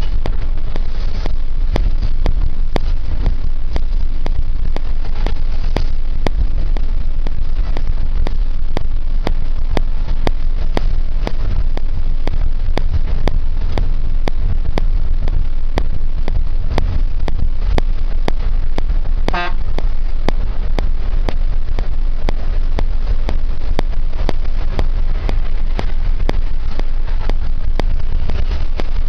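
Steady loud low rumble of engine and road noise from a moving vehicle. About twenty seconds in, one short horn toot sounds.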